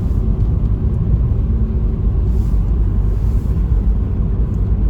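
Steady low rumble of a moving vehicle, engine and tyre noise heard from inside the cabin while driving.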